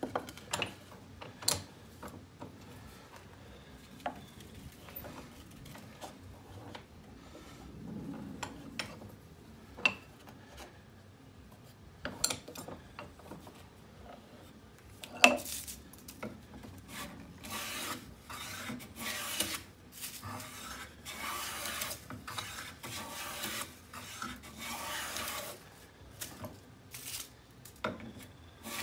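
Scattered knocks and clicks as a board is set and clamped in a bench vise, with one sharp knock about halfway through. Then a run of hand-plane strokes, a Lie-Nielsen No. 62 low-angle jack plane shaving along the board's edge, about one stroke a second.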